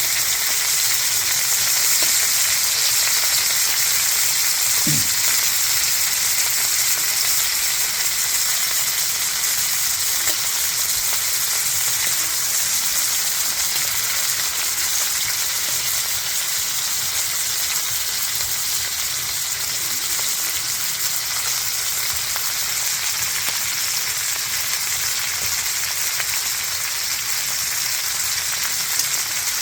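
Five-layer pork belly (ogyeopsal) sizzling steadily as it fries in its own fat.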